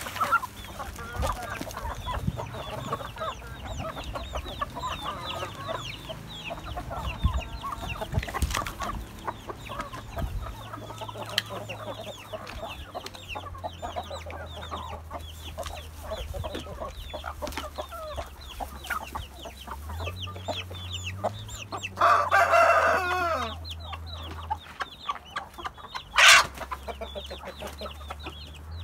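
Domestic chickens clucking and calling as they feed, with many short, thin, high calls throughout. About 22 seconds in a rooster crows, the loudest sound, and a brief sharp sound follows a few seconds later.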